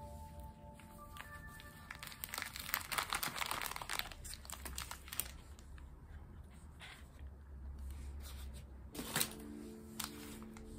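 Packaging being handled: crinkling and rustling of cardboard and plastic, densest from about two to five seconds in, then a sharp click near the end. Soft background music plays a few held notes at the start and end.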